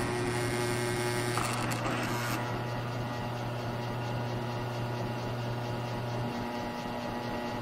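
Grizzly G1007 mill/drill running steadily with a strong hum, a step drill in its chuck being fed down to cut a hole in a metal muffler tube. The motor's pitch shifts slightly about six seconds in, as the cutting load changes.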